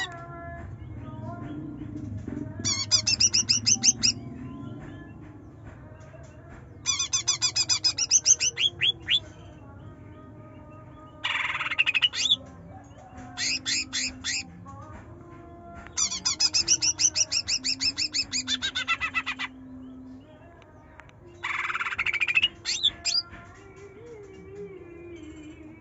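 Green leafbird (cucak ijo) singing in the fast 'trotol' style: about six loud bursts of rapid, machine-gun-like repeated high notes, each burst a second or three long, with short pauses between.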